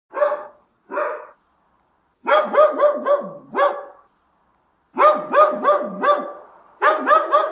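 A dog barking: two single barks, then three quick runs of about five barks each.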